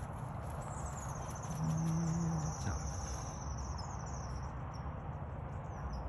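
A rapid series of high-pitched chirps that slowly falls in pitch over a few seconds, over steady outdoor background noise. A short low hum about one and a half seconds in is the loudest moment.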